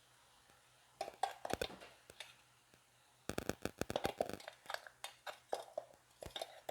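A spoon scraping and clicking in a cheenachatti (Kerala wok) while stirring a dry banana stem stir-fry: a short run of scrapes about a second in, then a denser, faster run from about three seconds in.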